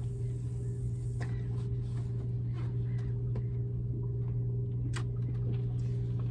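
Small motor boat's engine idling steadily as a low, even hum. A few light ticks sound over it, about a second in, at three seconds and at five seconds.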